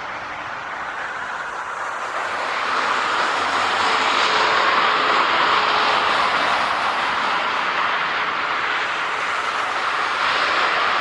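Boeing 737-400 jet engines (CFM56-3 turbofans) running, a steady rushing noise that grows louder about two to three seconds in and then holds.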